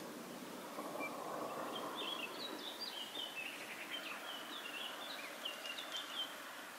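Small birds chirping in quick, short high notes over a faint steady outdoor hiss. The chirping starts about two seconds in and stops near the end.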